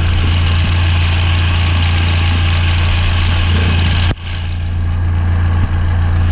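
Supercharged 1.6-litre four-cylinder engine of an R53 Mini Cooper S idling steadily, with the noise of a worn, rattling serpentine belt tensioner that is failing. The sound dips sharply for a moment about four seconds in.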